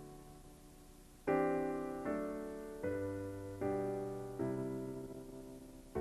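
Background piano music: slow chords struck about once a second, each one fading, after a quiet first second.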